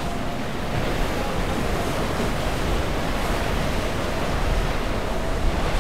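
Steady rush of surf and waves breaking against a boulder jetty, with wind on the microphone.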